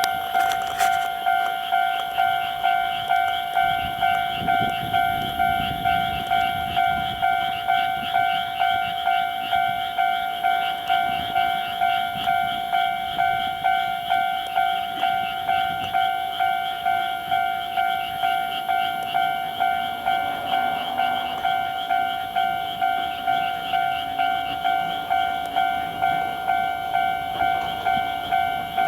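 Japanese level-crossing warning bell ringing, an even repeating electronic clang at a little under two strokes a second.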